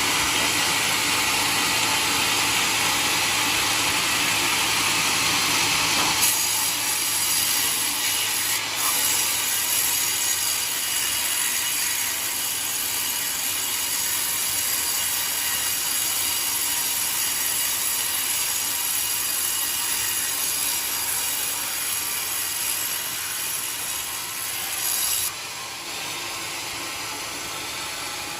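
Portable sawmill cutting through a coconut log: a steady, loud sawing hiss of blade through wood that becomes somewhat quieter near the end.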